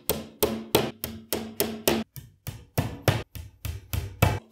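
A hammer tapping wooden dowels into the edge of a flat-pack furniture panel, with quick, even blows about four a second. The sound of the blows tells when a dowel is fully driven in.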